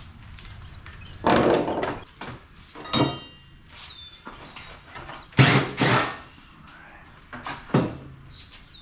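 Parts of an air-conditioning unit being pulled apart and handled: a run of knocks and scrapes, with a brief metallic ring about three seconds in and two louder bangs just after five seconds.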